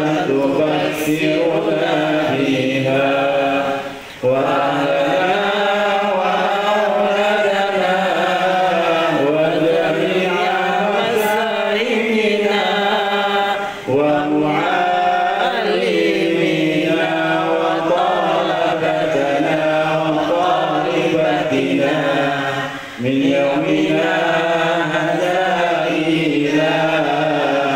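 Islamic salawat, Arabic blessings on the Prophet Muhammad, chanted by a man's voice through a microphone and loudspeaker in long melodic phrases. There are short breaks for breath about 4, 14 and 23 seconds in.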